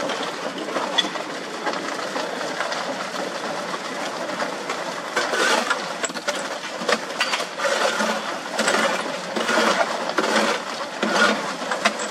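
Portable concrete mixer running with its drum tipped to pour, gravel-laden wet concrete clattering and rattling in the turning drum. From about halfway, sharper scrapes and knocks come roughly once a second.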